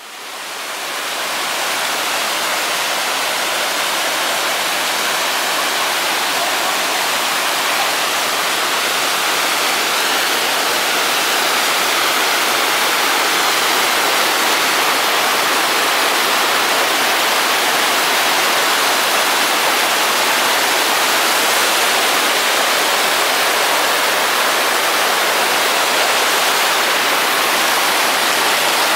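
Mountain stream cascading over granite boulders: a loud, steady rush of water that fades in over the first second or two.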